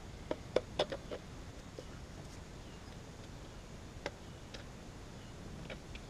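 Light clicks and knocks of metal parts as an ECM condenser fan motor's housing is handled for reassembly: a quick run of five or so in the first second, then a few single clicks spread out later.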